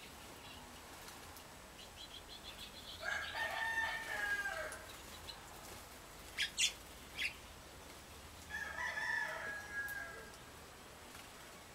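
A rooster crowing twice, about three seconds in and again near nine seconds, each crow lasting about two seconds. Between the crows a small bird gives three short, sharp chirps, and a quick ticking trill comes before the first crow.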